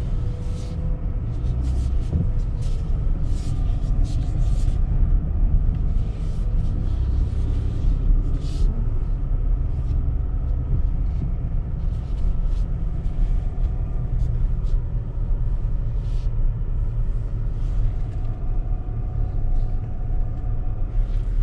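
Steady low rumble in the cabin of a Chevrolet Colorado pickup, its 3.6-litre V6 petrol engine running as the truck drives slowly over rough ground. Scattered clicks and knocks run through it.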